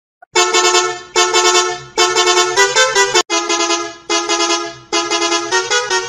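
Tour coach horn sounding in quick, rhythmic toots, grouped in about seven short bursts, some of them stepping between two or three pitches like a musical horn.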